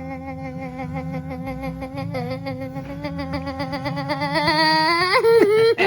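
A young child's voice holding one long steady hummed note, which climbs in pitch and breaks up near the end, over a low steady rumble.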